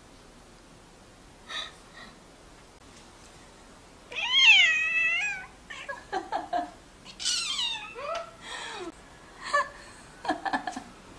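Munchkin short-leg cat crying in protest at being picked up: a long rising-then-falling meow about four seconds in, then a string of shorter, high, chirping cries like a sparrow's.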